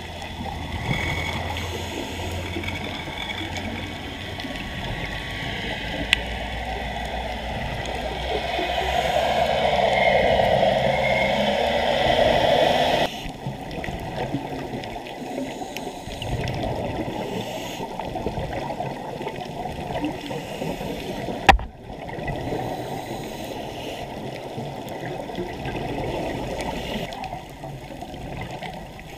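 Underwater bubbling and rushing from scuba divers' exhaled regulator bubbles, heard through the camera housing. It swells for a few seconds, drops off suddenly about halfway through, and a single sharp click sounds later.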